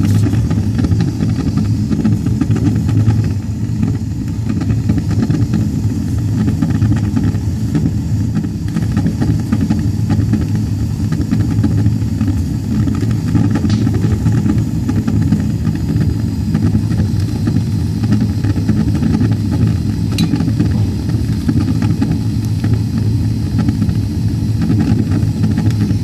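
Gas water heater burner running with a loud, steady low rumble, two sharp ticks cutting through it about halfway and again later on. The noise is the sign of water dripping onto the lit burner.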